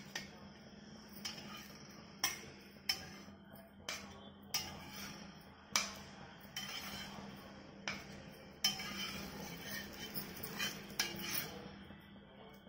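Metal spatula scraping and clinking on a cast-iron dosa tawa as mini dosas are lifted off, with about a dozen sharp clinks spread through and a longer stretch of scraping from about nine seconds in.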